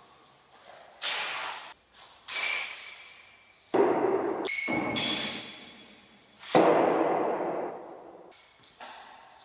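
A series of sudden knocks and clinks as objects are handled and set down, four loud strikes and a few lighter ones, each ringing on and fading slowly in a large echoing room.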